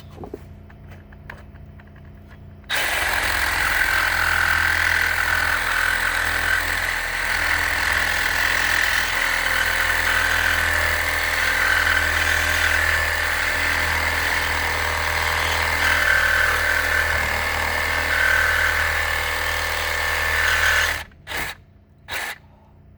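Power cutting tool running and cutting through welded steel: it starts about three seconds in, runs steadily for about eighteen seconds, stops, then gives two short bursts near the end.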